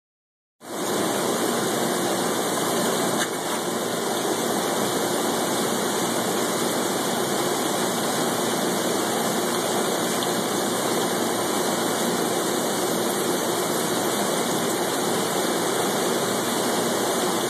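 Steady splashing of a thin stream of water pouring into a shallow tank of water, starting about half a second in.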